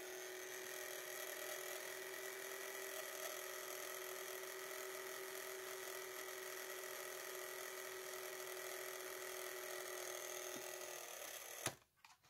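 Small electric mouth motor of a Gemmy animated baseball figure running with a steady, even whine, without stopping: the sign of a burnt, shorted transistor on the control board. It cuts off with a click near the end.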